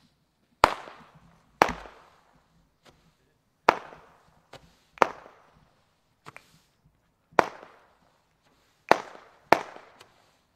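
Firework reports: about seven loud, sharp bangs at irregular intervals, each trailing a short echo, with a few fainter pops in between.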